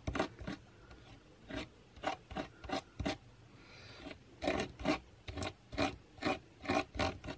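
Spatula scraping structure paste across a plastic stencil on paper: a run of short, quick scraping strokes in small groups, with a brief pause in the middle.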